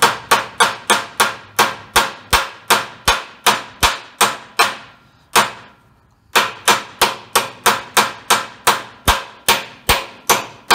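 Hammer tapping a U-joint bearing cup down into a Jeep drive shaft yoke: a steady run of sharp metal strikes about three a second, with a short pause in the middle before the tapping resumes. The strikes drive the cup in until it sits flush.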